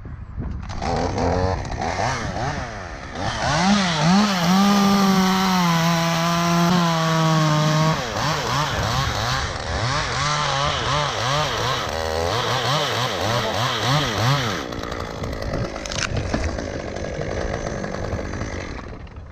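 Gas chainsaw running at high revs and cutting into wood. Its engine note climbs in the first few seconds, holds, then rises and falls repeatedly with the throttle and the load of the cut, and eases off near the end.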